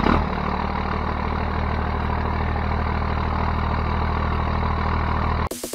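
Truck engine idling steadily, cutting off abruptly near the end.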